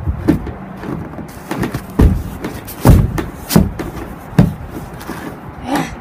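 Winter boots stomping repeatedly on a pocket knife lying on packed snow: a series of heavy thuds, about one a second, with crunching snow between them.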